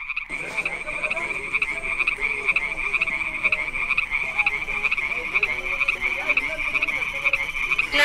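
A chorus of frogs calling: a steady, fast-pulsing trill, with lower wavering calls beneath.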